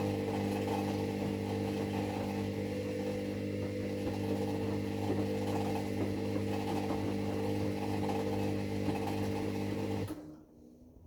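A motor or machine running with a steady hum that cuts off suddenly about ten seconds in.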